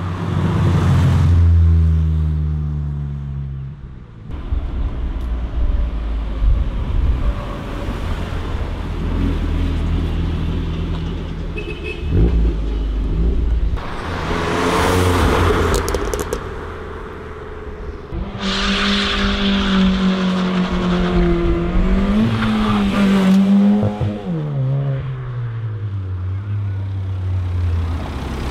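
Cars' engines and exhausts driving past one after another, each note rising as it accelerates and falling away as it passes. A Ford Fiesta passes at the start and a BMW 1 Series coupe near the end, with a loud rush of noise about halfway through.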